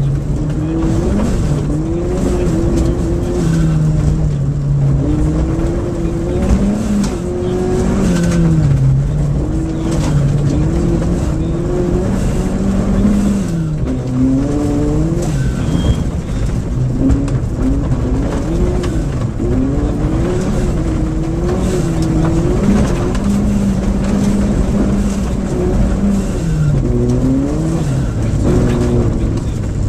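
VW Golf rally car heard from inside the cabin at stage pace on gravel. The engine revs rise and fall again and again through gear changes and lifts, over constant tyre and gravel noise with scattered stone clicks.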